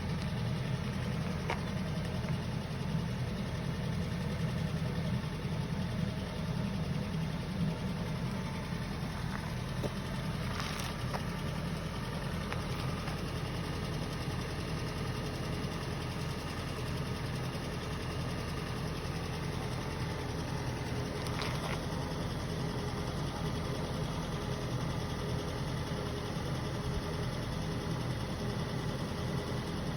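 Suzuki M16A four-cylinder petrol engine idling cold, with the knock that the owner hears on a cold start.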